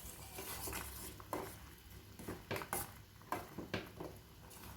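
A spoon stirring a herbal decoction in a cooking pot, knocking lightly against the pot a handful of times.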